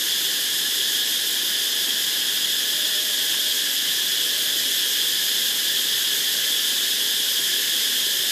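A dense chorus of forest insects, a steady high-pitched drone that holds unchanged throughout.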